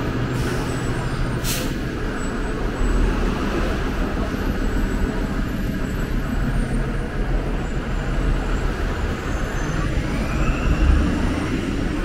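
Orion VII diesel city bus running with a steady low engine drone. About a second and a half in there is a short hiss of released air, and near the end a rising whine.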